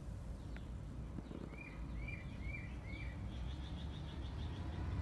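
A small bird singing over a steady low rumble: a few faint high chirps, then four quick arched chirps, then a fast high trill of about eight notes near the end.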